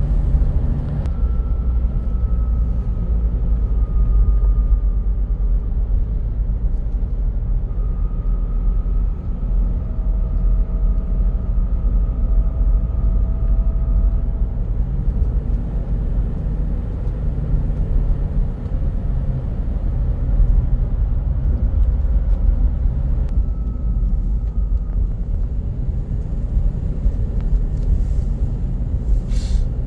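A steady low rumble with a faint high whistle that comes and goes three times, each time sagging slightly in pitch. For a few seconds a lower tone rises gently alongside it. A short hiss comes near the end.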